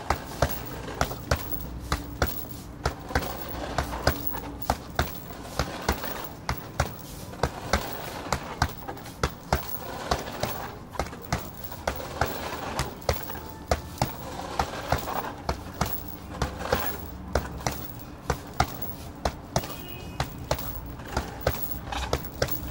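Boxing-gloved punches landing on a hanging heavy bag: sharp smacks in a steady run of combinations, two or three a second.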